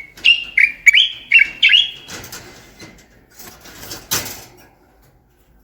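Common bulbul singing a quick run of about six loud, clear whistled notes in the first two seconds, followed by rougher, scratchier sounds, the loudest about four seconds in.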